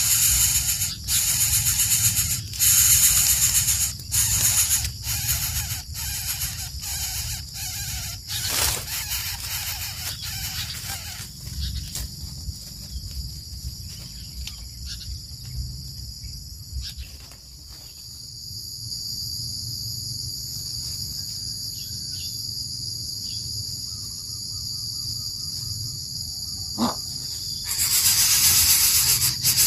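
Coucal giving harsh, raspy hissing calls in quick repeated bursts for about the first ten seconds and again near the end. The quieter stretch between holds a steady high insect trill.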